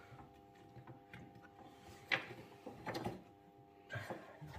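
Light clicks and knocks of hand work on the stripped dashboard frame and wiring of a Toyota Land Cruiser, three short knocks about a second apart, the loudest about two seconds in, over a faint steady hum.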